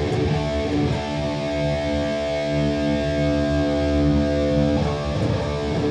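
Distorted electric guitar chords played through a Boss Katana Gen 3 2x12 combo amp, ringing out and struck again about five seconds in. The amp's green contour is set with its frequency lowered, and the tone is full and thick.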